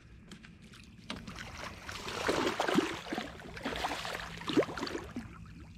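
Water splashing and sloshing beside a kayak as a hooked muskie thrashes at the surface near the boat. The splashing is loudest in the middle, with a sharp splash about four and a half seconds in.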